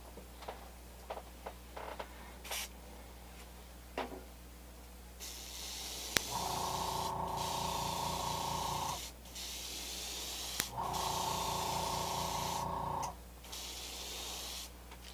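Airbrush spraying paint in two long bursts of several seconds each, a hiss with a steady tone under it, after a few soft clicks of handling.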